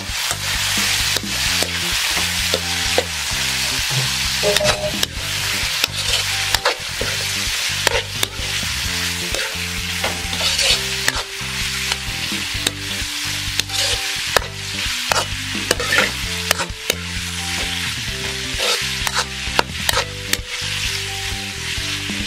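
Beef cubes and sautéed aromatics sizzling in oil in a metal wok while a metal spatula stirs and scrapes them, with frequent sharp clinks of the spatula against the pan.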